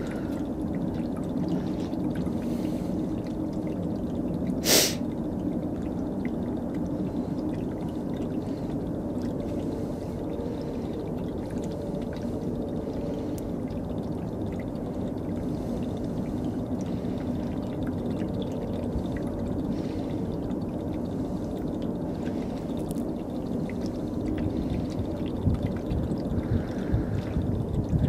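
Diesel fuel draining from a semi truck's primary fuel filter into a plastic jug: a steady pouring trickle, with one sharp click about five seconds in.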